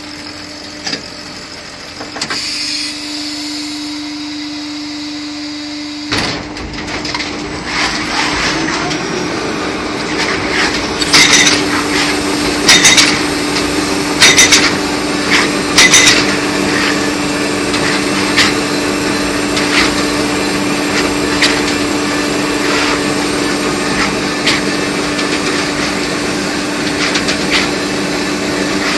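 Corn silage packaging machine running with a steady hum. It grows louder about six seconds in, and sharp mechanical bursts then repeat roughly every one and a half seconds as it cycles.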